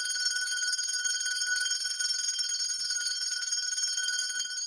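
Small brass hand bell (puja ghanti) rung rapidly and without pause during aarti: a steady, high, bright ringing that cuts off suddenly at the end.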